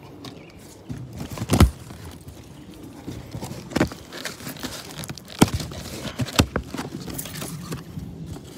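A cardboard shipping box being opened and its packaging handled: rustling and crinkling, broken by four sharp snaps or knocks spread through.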